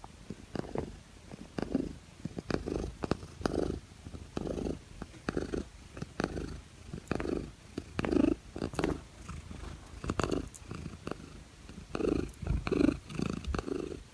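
Domestic cat purring close up, the purr swelling and fading in a steady rhythm about once a second.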